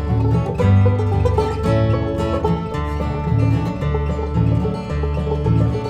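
Instrumental break in a bluegrass-style song: plucked string instruments play over a steady bass line, with no singing.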